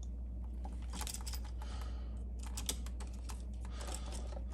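Stiff electrical wires being bent and straightened by hand at an outlet box, making irregular light clicks and scrapes, over a steady low hum.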